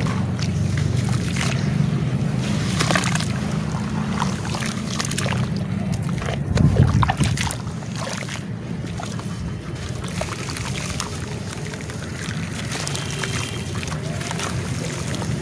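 Hands squeezing and crumbling soft lumps of wet charcoal paste in a tub of water, with irregular sloshing and splashing and a louder splash a little before halfway. A steady low rumble runs underneath.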